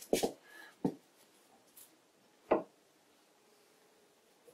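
Three short metallic clicks and knocks from the lever and dovetailed plate of a Karger bench lathe's spindle threading attachment being worked by hand, locking the star nut onto the master thread. The clicks come near the start, just under a second in and about two and a half seconds in.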